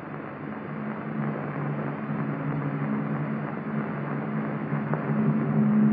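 Aircraft engine droning steadily, slowly growing louder, on an old film soundtrack with hiss and muffled highs.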